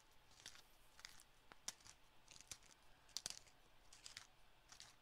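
Near silence broken by about a dozen faint, irregular clicks and light ticks.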